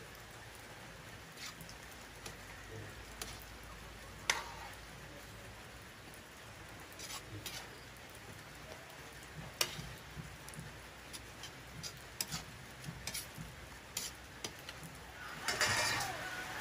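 Vegetables being stirred by hand in a steel wok of simmering broth over a wood fire: a steady low hiss with scattered sharp clicks, and a louder rush of noise near the end.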